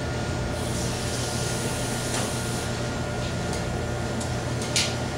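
A chef's pan and utensils at a stovetop: a soft hiss for about two seconds, a few light clicks, and a louder clatter near the end, over a steady room hum.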